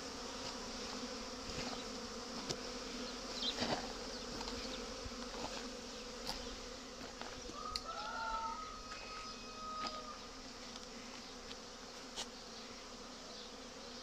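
Honey bees buzzing steadily as they fly in and out of the hive entrances, foragers returning with pollen. A brief whistle is heard about eight seconds in.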